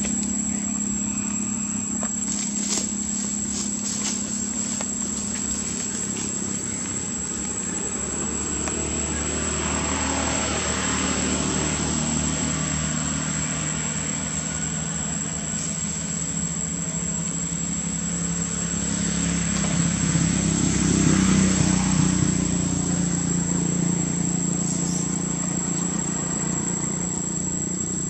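Steady engine hum with motor vehicles swelling past and fading away twice, about ten seconds in and again near twenty seconds in, the second the loudest, over a thin high-pitched whine.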